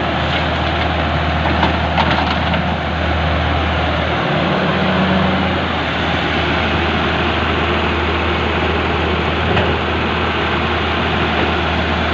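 Hitachi 160 excavator's diesel engine running steadily under work, with a few light knocks about two seconds in.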